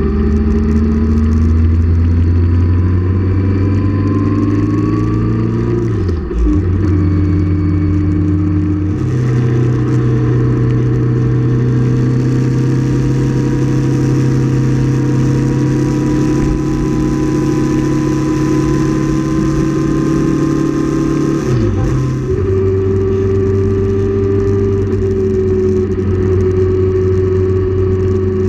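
Motorcycle engine under way, heard from the bike itself with wind rushing past the microphone. The engine note climbs for the first several seconds, dips briefly at a gear change about six seconds in, then holds fairly steady at cruising speed, with another quick gear-change dip a little past twenty seconds.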